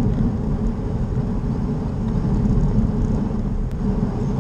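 Wind rumbling over the microphone of a body-mounted action camera on a moving bicycle: a steady, low, buffeting noise.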